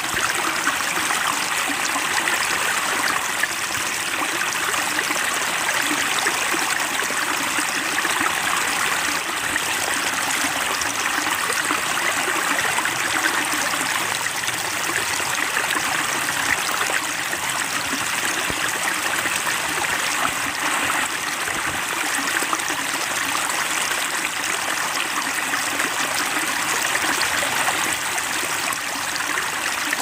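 Flowing water trickling and splashing steadily, like a small stream, with no birdsong over it.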